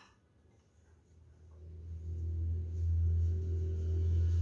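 A low, steady hum fades in about a second in and then holds level; before it there is near silence.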